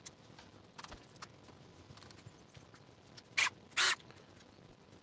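Metal bodywork on a car's steel panel: a few faint taps and clicks, then two short rasping bursts about half a second apart near the end.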